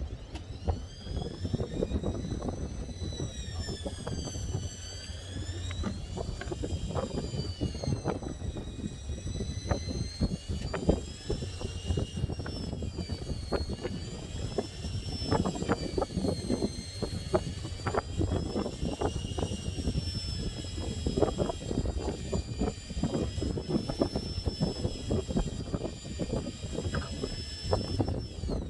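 Electric fishing reels whining as they wind line, the pitch slowly rising and falling, over wind and small knocks and clatter on the boat deck.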